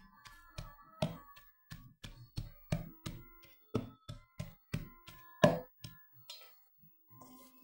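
A utensil knocking and scraping against a stainless steel bowl while food is mixed: quick, irregular knocks, about three a second, each with a short metallic ring, the loudest about five and a half seconds in. The knocking stops about six seconds in.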